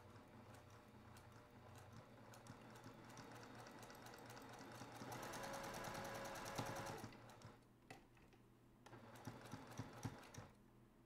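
Domestic sewing machine stitching a seam through quilting cotton, growing louder as it runs faster toward the middle. It stops briefly, then runs again in a few short bursts before stopping near the end.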